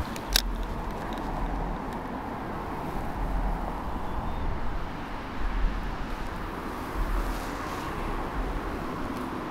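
Steady road-traffic noise from the road bridge overhead, with wind buffeting the microphone in gusts. A single sharp click comes about half a second in.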